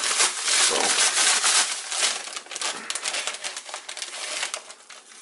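Gallon Ziploc plastic bag crinkling and rustling as it is handled with pork and Shake 'n Bake coating mix inside. The crinkling is dense at first and grows fainter toward the end.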